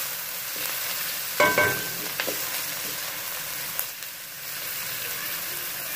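Sliced onions and ginger-garlic paste sizzling in hot oil in a metal pan, a steady frying hiss, as the paste cooks for a minute to lose its raw smell. A wooden spatula stirs and knocks on the pan a few times, loudest about a second and a half in.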